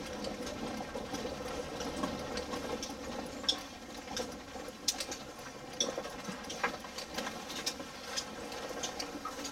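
Road noise inside a vehicle's cabin on a rough dirt road: the engine running steadily, with scattered sharp clicks and knocks as the body rattles over the bumps.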